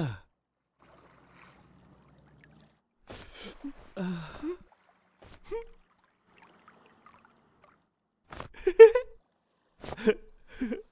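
Short wordless vocal sounds from cartoon characters: gasps, sighs and brief emotional cries with sliding pitch, separated by quiet gaps. The loudest comes about nine seconds in.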